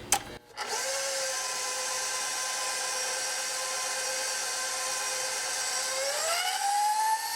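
Electric mixer motor whining steadily as it beats cake batter, then rising in pitch about six seconds in as it is turned up to a higher speed.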